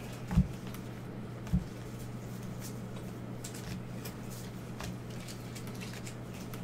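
Trading cards being flipped and slid through gloved hands, a soft rustle with faint light clicks, over a steady low hum. Two dull thumps come in the first couple of seconds.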